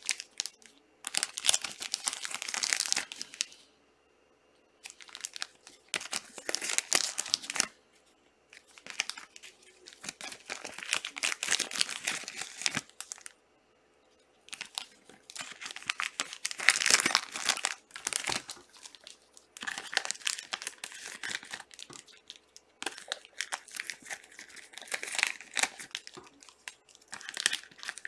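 Plastic trading-card pack wrappers crinkling and tearing as packs are ripped open and handled, in repeated bursts with short pauses between.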